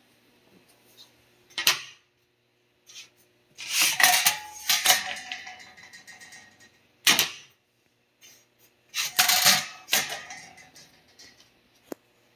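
Metal pieces clattering and clanking in about five separate bursts, each strike leaving a short ringing tone, over a faint steady hum.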